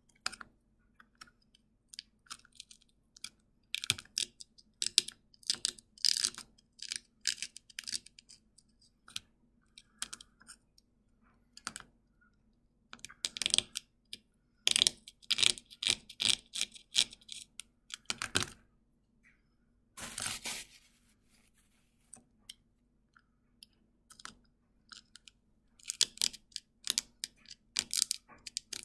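A needle scratching and picking at a thin disc of hard sugar honeycomb (dalgona) candy to carve out a pressed-in shape: irregular runs of small dry scratches and clicks, with one longer scrape about two-thirds of the way through.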